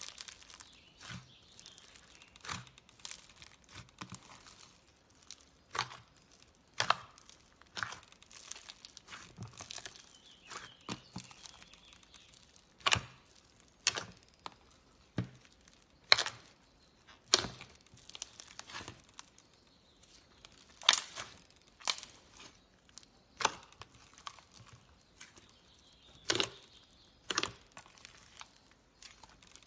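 Fingers pressing and squeezing pink slime mixed with foam beads, making sharp pops and sticky crackles about once a second, with a fine crunching of the beads through the first half.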